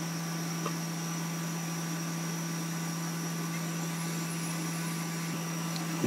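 Hot air rework station's blower running steadily while blowing hot air onto a circuit board to melt the solder under an SMD connector: a constant hum with a faint high whine. There is a small tick about half a second in.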